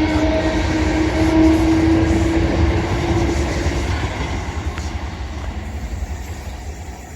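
Class 455 electric multiple unit pulling away: a steady hum over wheel and running noise for the first few seconds, the whole sound fading as the train draws off.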